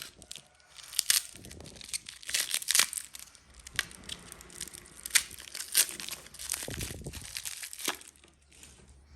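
Wrapping crinkling as it is handled and pulled open, in a string of sharp, irregular crackles.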